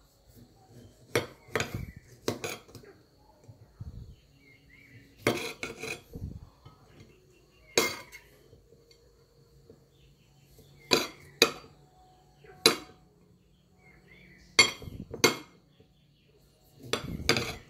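Kitchen knife cutting tomatoes on a ceramic plate, the blade clacking against the plate with each cut: sharp clicks at irregular intervals, some in quick pairs or short flurries.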